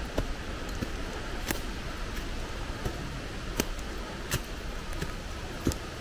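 Footsteps of a hiker walking on a forest trail of dry fallen leaves and stones, one crunching step about every 0.7 seconds, over steady background noise.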